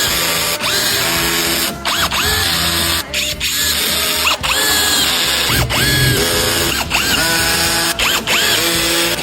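Handheld power tool, such as a drill or impact driver, run in short repeated bursts. Its motor whine rises and falls about once a second, over background music.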